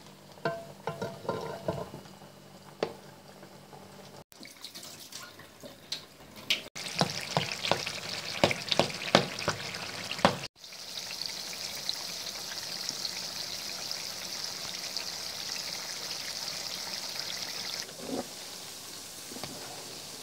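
Sliced potatoes frying in hot oil in a pan, stirred with a spatula. A burst of dense, loud crackling and spatter gives way to a steady high sizzle that drops lower near the end. The sound breaks off abruptly a few times.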